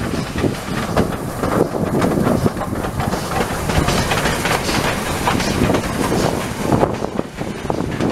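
Victorian Railways K-class 2-8-0 steam locomotive K153 moving past close by, hauling its carriages: a loud, dense mix of steam exhaust and running-gear and wheel noise, with many short knocks.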